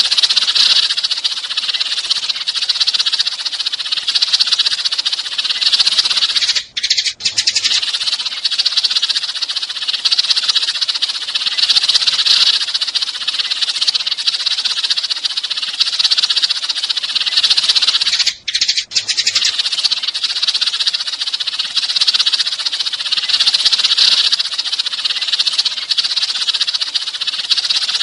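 Flock of sparrows chirping and chattering in a dense, continuous stream: a looped sparrow lure call. The chatter breaks off briefly twice, about seven and nineteen seconds in.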